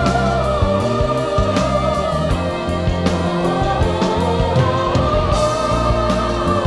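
The drama's closing theme song, a pop ballad: a long, wavering melody line over a bass line and a steady drum beat.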